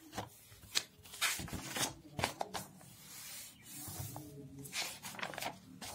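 Paper pages of a textbook being turned by hand: a series of short, crisp rustles and flaps, with a longer sliding swish about three seconds in.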